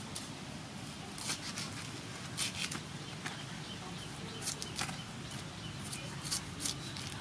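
Knife cutting and shaving the husk off a large fresh bamboo shoot: irregular crisp strokes, about a dozen, some in quick pairs, over a faint steady background.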